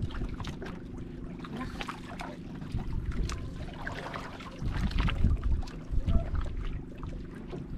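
Water lapping and slapping against the hull of a small wooden outrigger boat, with gusts of wind buffeting the microphone and a faint steady hum underneath.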